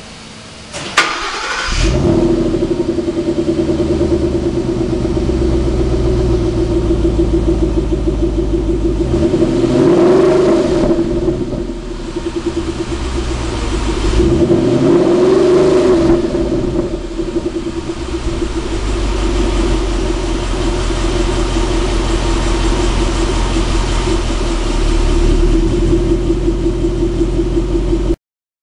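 A 2011 Ford Mustang GT's 5.0-litre V8, fitted with GT500 axle-back mufflers, heard at the exhaust tip. It is cranked and starts about a second in, settles to idle, and is revved twice to about 3000 rpm, dropping back to idle after each rev.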